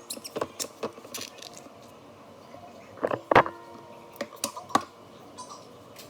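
A series of light clicks and knocks from hard objects being handled. About three seconds in comes one sharper knock that rings briefly.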